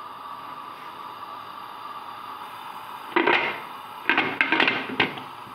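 Aluminium pressure cooker lid being put on and closed: a metal clatter about three seconds in, then a quick run of knocks and scrapes as the lid is worked into place.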